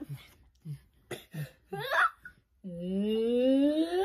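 Young child laughing: a run of short breathy giggles, then a long vocal sound rising steadily in pitch near the end.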